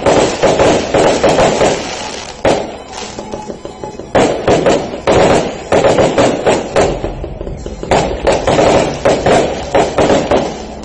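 Fireworks crackling: dense clusters of rapid pops that come and go every second or two.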